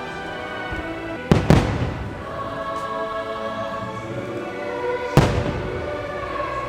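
Fireworks bursting: two quick bangs about a second and a half in and another a little past five seconds, over orchestral show music played through loudspeakers.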